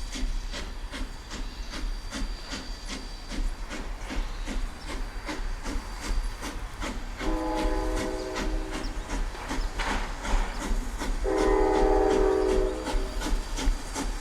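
Quincy Railroad No. 2, a 1924 ALCO 2-6-2T steam tank locomotive, working with a quick, even beat of exhaust chuffs. Its steam whistle sounds twice, two long chime blasts, the second louder.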